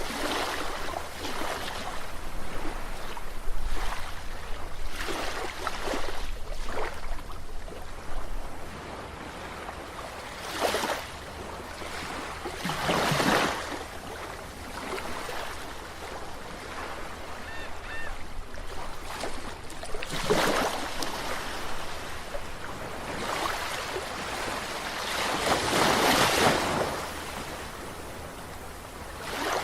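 Sea waves washing in on the shore, the wash swelling into several louder surges a few seconds apart.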